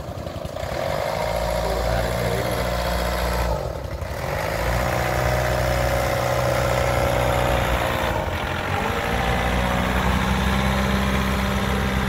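Diesel engine of a small iron canal barge running steadily under way. Its note dips briefly about three and a half seconds in and shifts again around eight seconds.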